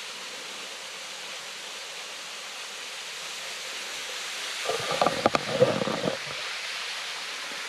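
Waterfall and creek water rushing steadily. About five seconds in there is a brief cluster of sharp knocks and short pitched sounds lasting about a second and a half.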